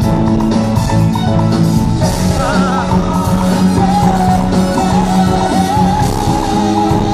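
Band music during a soundcheck: held bass notes and drums under a wavering lead melody line that sustains through the middle.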